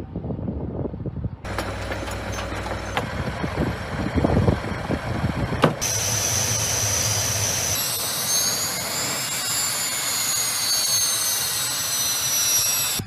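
Sukhoi Su-25 attack jet's twin turbojet engines running on the ground, a steady rumble under a high turbine whine. The sound shifts abruptly at a couple of points, and from about eight seconds in several whining tones slowly rise and fall together.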